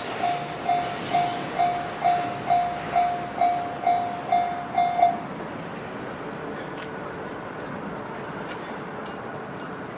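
Level-crossing warning bell ringing about twice a second, a bright repeating tone that stops about five seconds in as the crossing clears after the train. A steady low outdoor noise follows.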